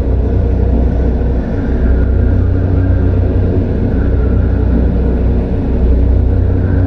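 Dark horror ambience: a steady deep rumbling drone with a faint eerie tone drifting in and out above it.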